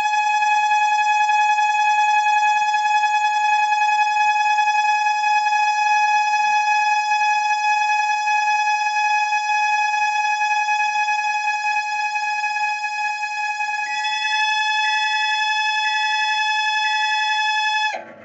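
Microwave oven's cooling fan squealing with a steady high-pitched whine while the oven runs. About fourteen seconds in a second, higher tone joins, pulsing about once a second, and the squeal cuts off suddenly near the end. The squeal comes from the fan's dry bearing, which only needs lubricating.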